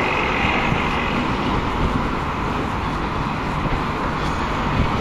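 Steady noise of passing road traffic.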